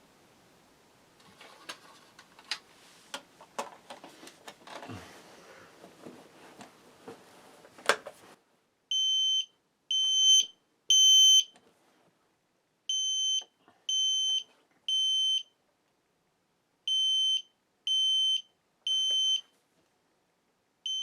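Clicks and knocks for the first several seconds, then a System Sensor P2RL horn sounding its temporal-3 pattern on the 3 kHz low setting: a high, steady beep in groups of three, about a second apart, with a pause of about two seconds between groups.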